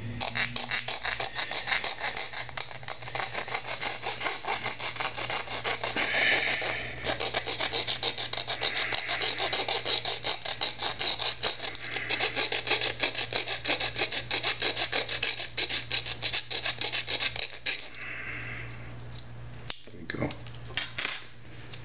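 Small handheld saw blade cutting through the plastic mounting hook on a Syma X5C quadcopter's camera, in quick back-and-forth strokes with a short pause about seven seconds in. The sawing stops about four seconds before the end, leaving a few light handling clicks.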